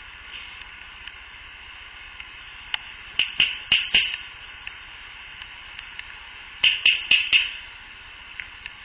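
Two quick runs of four sharp clicks or pops, each run about a second long and a few seconds apart, over steady recorder hiss; the recordist takes them for Sasquatch mouth sounds.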